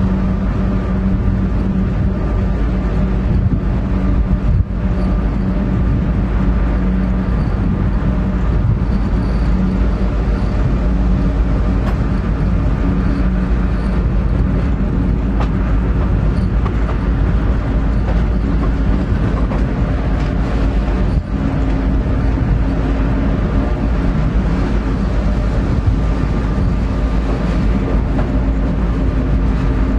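EMD GP9R diesel-electric locomotive running steadily under load, heard from inside its cab as it hauls a loaded train: a continuous low engine drone.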